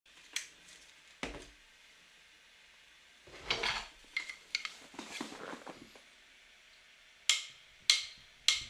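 Metal spoon clinking and scraping against a bowl while stirring a thick spice paste, in scattered short strokes with gaps of silence between them, and a longer run of scraping around the middle.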